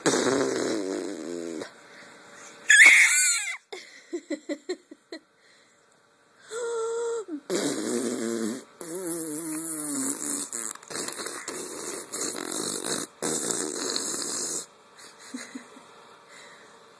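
A baby making vocal noises: a loud high squeal about three seconds in, a quick run of short grunts, then long sputtering, buzzing stretches with a wavering pitch.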